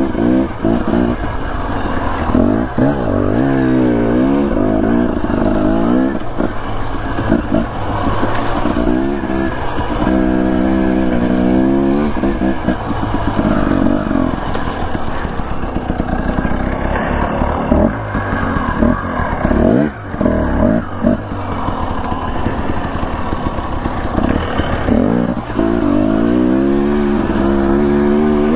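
Dirt bike engine revving as it is ridden, its pitch climbing and falling over and over with the throttle.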